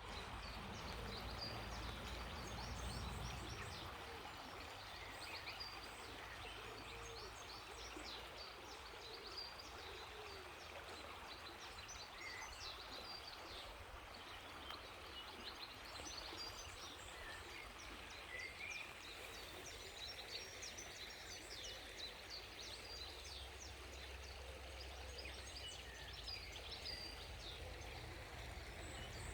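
River water flowing with a steady rush, while small birds chirp and sing throughout. A low rumble underlies the first few seconds and returns briefly about three-quarters of the way through.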